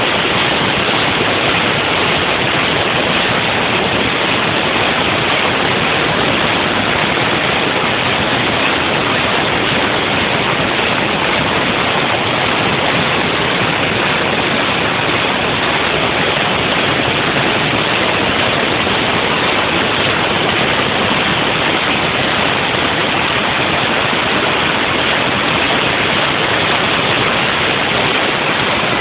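Haas VF-2 CNC vertical mill running a trochoidal milling cut: a steady, loud rushing noise with no clear tone.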